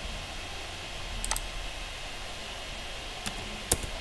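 Computer mouse clicking: a quick pair of clicks about a second in, then two single clicks near the end, the last one the loudest, over a steady faint hiss.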